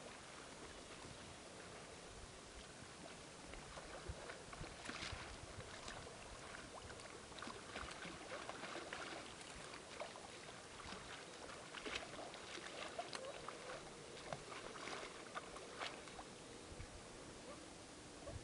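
Faint lapping and trickling of open river water at the ice edge, with irregular small splashes and clicks.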